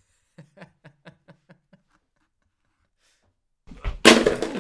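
A man chuckling softly in a quick run of short breathy laughs, about five a second. Near the end there is a sudden loud burst of commotion with a voice in it.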